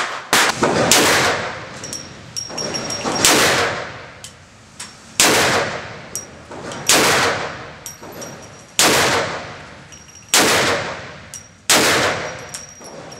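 Handgun shots fired one at a time at a slow, steady pace, about one every two seconds, each crack followed by a long echoing tail. Faint high ringing and light ticks come between the shots.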